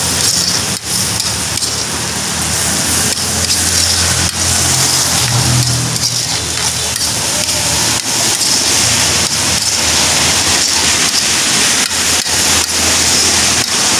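Eggs and sliced sausage sizzling in hot oil in a wok as they are stirred with a metal spatula: a loud, steady hiss.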